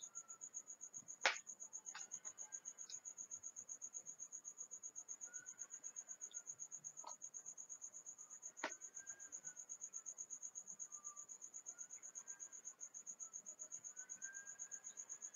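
Faint cricket chirping: a steady, high, fast trill pulsing about five times a second. A few sharp clicks sound over it, the loudest about a second in.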